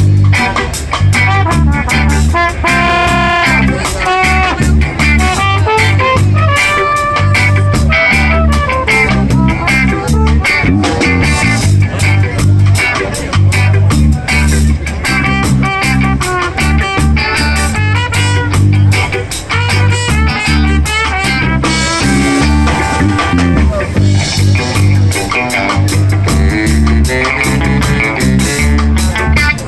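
Live band playing a loud instrumental passage of an upbeat ska-style song: electric guitar, bass and drum kit, with melodic lines over a steady beat.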